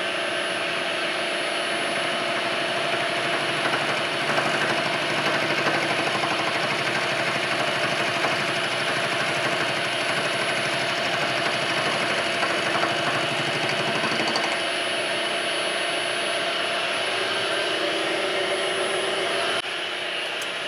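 Milling machine running a 1/8-inch corner-rounding end mill, cutting a radius along the edge of a metal bar: a steady machine whine with cutting noise. It gets slightly quieter near the end.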